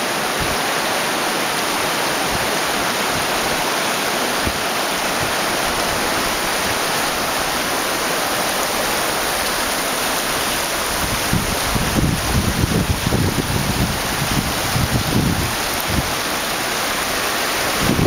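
Mountain river water rushing over rocks in a steady, even rush. From about eleven seconds in, wind buffets the microphone in irregular low gusts.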